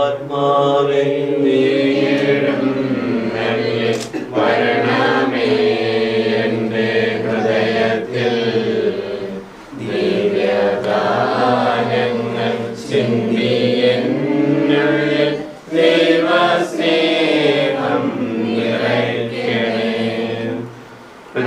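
A group of voices singing a slow devotional hymn together, in long held phrases with brief breaks between lines.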